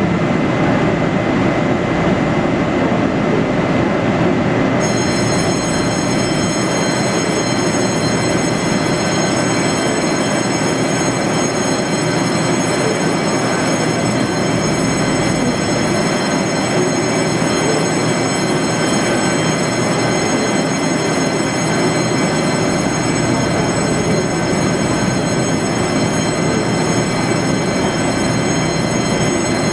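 GE E42C (TRA E200-class) electric locomotive standing at the platform with its onboard equipment running steadily. A high, many-toned whine comes in about five seconds in and holds steady.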